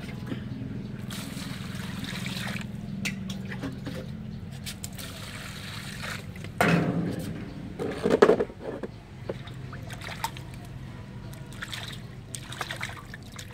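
Water pouring and splashing into an aluminium bowl of lettuce, loudest in two bursts about halfway through, then smaller sloshes as a hand swishes the leaves to wash them. A steady low hum runs underneath.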